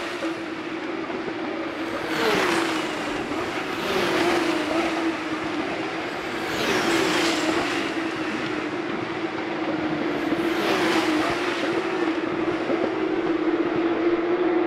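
Porsche 911 GT3 Cup (992) race cars with flat-six engines passing one after another at speed, about four of them, each engine note falling in pitch as it goes by. A steady engine drone from other cars on the circuit carries on between the passes.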